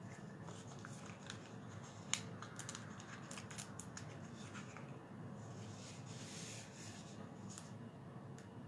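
Faint handling of cardstock and a sheet of foam adhesive dimensionals: small clicks and ticks as the dimensionals are peeled off and pressed onto a paper panel, with a sharp click about two seconds in and a soft rustle of paper near the six-second mark.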